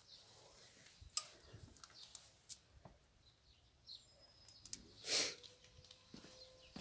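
Quiet scattered footsteps and scuffs on gritty rubble, with sharp little clicks and a louder scuffing rustle about five seconds in, and faint bird chirps in the background.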